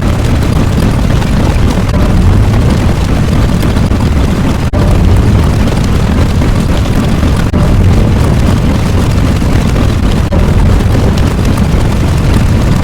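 Loud, steady low rumbling roar that runs on without a break.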